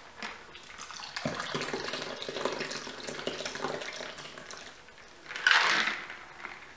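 Chilled chocolate martini poured from a stainless steel cocktail shaker into a martini glass: a steady stream of liquid from about a second in, then a brief louder noise near the end as the pour stops.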